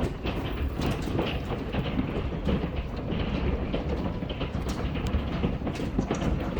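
Golf-ball-size hail pelting down steadily: a dense, continuous rattle of many sharp impacts over a low rumble.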